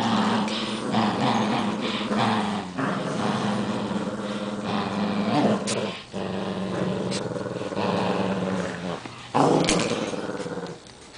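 Poodles growling as they tug a plush toy back and forth: long low growls, broken off briefly a few times, that stop shortly before the end.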